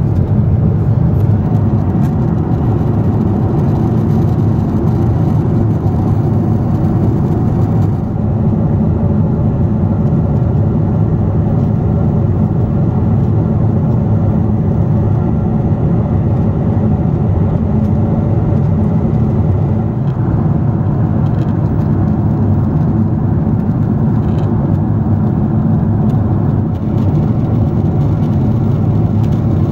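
Steady low roar of a Boeing 747-8i cabin in cruise: engine and airflow noise heard from a window seat. The faint higher hiss thins out about eight seconds in.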